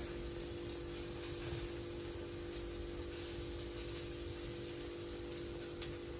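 Plantain, vegetables and whole red snapper frying in oil in a pan, a steady sizzling hiss, over a constant low hum.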